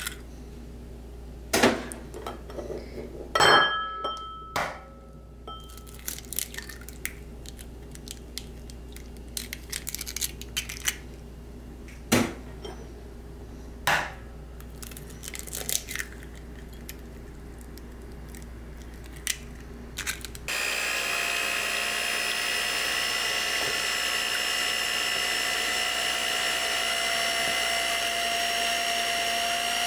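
Eggs cracked one at a time into a heat-resistant glass mixing bowl: a few sharp knocks and small clicks, one ringing briefly like glass. About two-thirds of the way through, an electric hand mixer switches on and runs at a steady whine, beating the eggs in the glass bowl.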